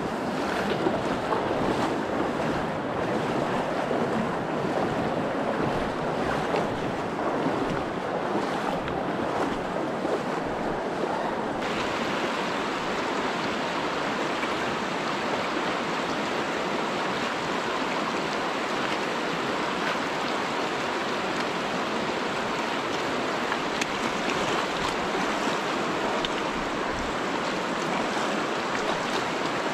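Steady rush of the Virgin River flowing over the rocks of a canyon stream, an even noise with no pauses. The higher hiss changes abruptly about twelve seconds in.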